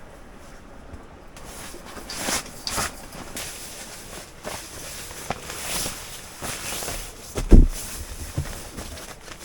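Rustling and shuffling movement, with one heavy low thump about seven and a half seconds in.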